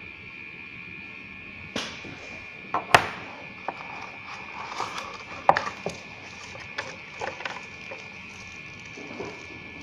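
Handling sounds at a desk: a cardboard phone box and its inserts being moved and set down, with a few sharp clacks, the loudest about three seconds in, then a run of lighter taps and clicks, and a plastic packet handled near the end. A steady high-pitched whine runs underneath.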